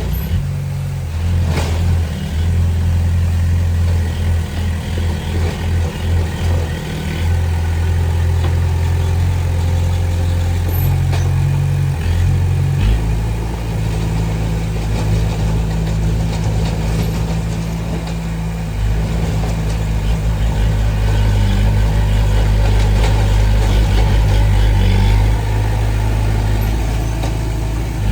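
Heavy diesel engine of earthmoving machinery running steadily under work. Its low engine note shifts deeper about halfway through.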